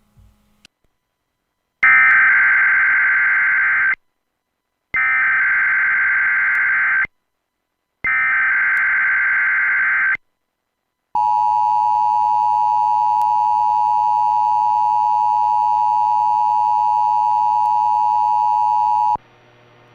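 Emergency Alert System tones opening a Required Monthly Test. Three digital SAME header bursts come first, each about two seconds long and about a second apart. Then the two-tone EAS attention signal holds steady for about eight seconds and cuts off suddenly.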